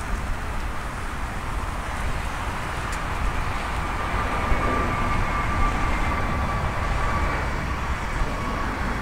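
Twin jet engines of an Airbus A321 airliner at takeoff power during climb-out: a steady roar with deep rumble, and a thin high whine that comes in about three seconds in and fades near the end.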